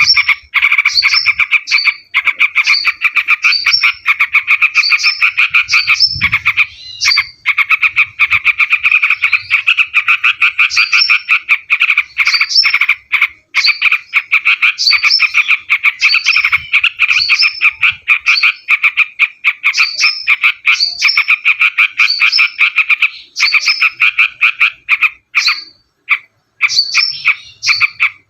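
Yellow-vented bulbul (terucuk) calling in a rapid, almost unbroken chattering run. Short high upswept notes repeat over it every second or less, with a few brief breaks.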